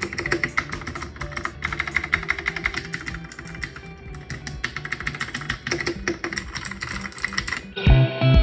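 Typing on a CIY X77 mechanical keyboard with its stock switches: a fast, continuous run of keystrokes over background music. Near the end the typing stops and the music comes up louder, with a steady bass beat.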